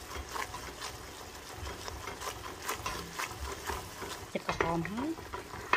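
Wooden spatula scraping and clicking against a stainless steel pot as it stirs chopped garlic frying and bubbling in the bottom, over a light sizzle.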